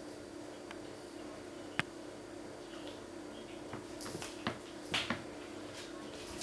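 Bengal kittens playing with a fabric toy on a hard floor: a sharp click near the middle, then short scuffling scrapes about two thirds of the way through, over a steady low hum.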